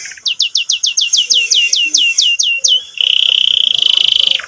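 Domestic canary singing loudly: a run of about fifteen quick, downward-slurred notes, then about three seconds in a switch to a fast, even buzzing trill.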